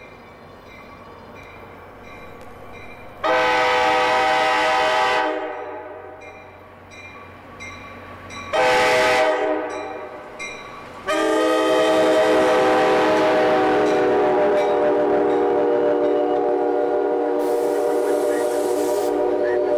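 NJ Transit train's air horn sounding a long blast, a short blast, then a long blast held on as the train reaches and passes: the close of the long-long-short-long grade-crossing signal. The train's passing runs under the final note.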